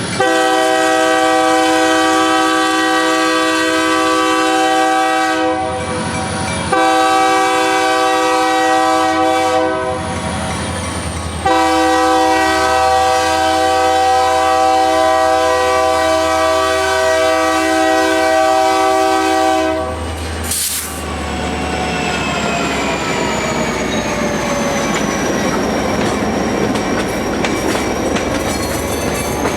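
Diesel locomotive air horn sounding three long blasts, the third the longest. After the horn stops, the train rumbles by with wheels squealing at a high, wavering pitch.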